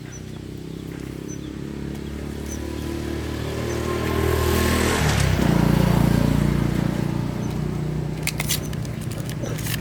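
Motorbike engine running, growing louder over the first five seconds, then dropping in pitch about halfway through and running on steadily. A few sharp clicks come near the end.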